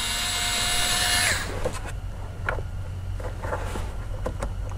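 Cordless screwdriver motor whirring steadily for about a second and a half as it backs a screw out of the plastic steering column shroud, then winding down and stopping. A few light clicks follow.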